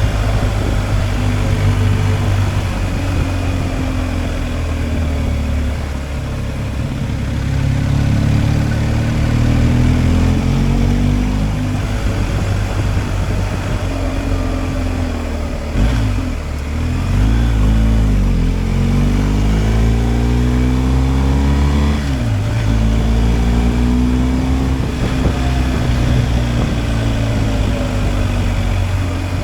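BMW R 1250 GSA's boxer twin engine running on the road, its pitch rising and falling with the throttle. About halfway through and again a little later, the note drops sharply and climbs back up.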